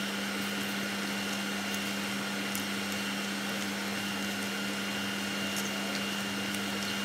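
A steady whirring motor hum with an even hiss, like a fan running, over a few faint taps of a wooden spoon stirring in a pot.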